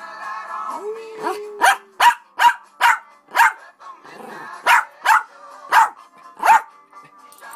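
Small shaggy dog barking along to a song: about ten short, sharp, high barks in two quick runs, roughly two a second, with a pause in between.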